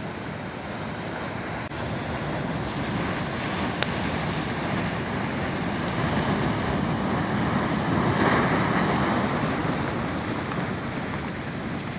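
Ocean surf breaking and washing in among stranded blocks of glacier ice, with wind on the microphone. The wash swells to its loudest about eight seconds in, then eases.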